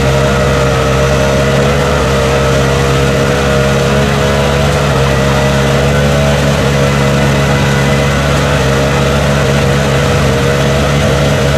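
Side-by-side UTV engine held at full throttle at a steady pitch while its wheels spin, throwing mud, with the machine stuck in a deep mud pit.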